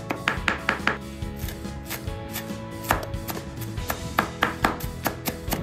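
Kitchen knife chopping spring onion on a wooden cutting board: a run of quick blade strikes on the board, about three to four a second, with a short pause about a second in.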